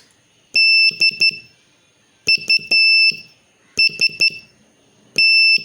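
Morse code practice tone keying the word DUST: dah-dit-dit, dit-dit-dah, dit-dit-dit, dah. A single high-pitched beep, switched on and off cleanly, with short gaps between the letters.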